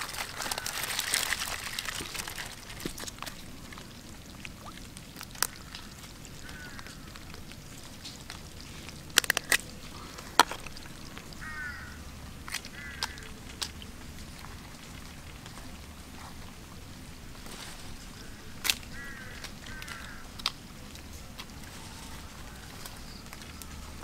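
Live crabs rustling and scraping in a wicker basket as a hand digs through them, followed by scattered sharp clicks and snaps as single crabs are picked out and handled.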